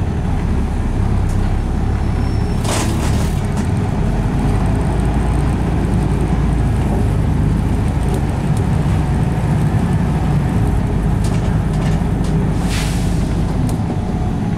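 Volvo B7RLE bus's six-cylinder diesel engine and ZF automatic gearbox heard from inside the saloon while under way: a steady low drone. Two brief hisses come through, one about three seconds in and one near the end.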